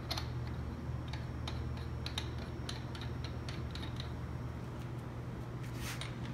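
Light, irregular clicks and taps of the GR6 transmission's line-filter housing being handled and threaded back on by hand, over a steady low hum.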